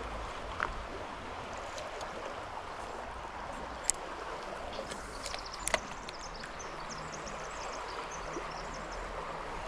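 Small creek running: a steady rush of flowing water, with a few short, sharp clicks over it.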